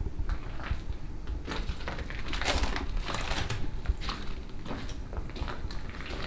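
Footsteps crunching and scraping over a debris-strewn, decaying floor, an irregular run of short crackles.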